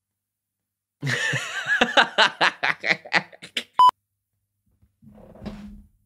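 A burst of laughter with a quick, even ha-ha rhythm, cut off by a short 1 kHz censor bleep. Near the end comes a quieter low scuffling thump as a person falls over.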